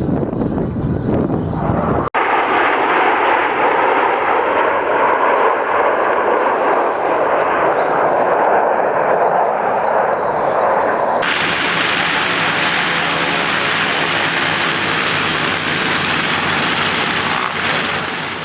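Aircraft engine noise in three clips cut together. From about two seconds in there is an even rushing noise. From about eleven seconds in an engine drones at a steady pitch.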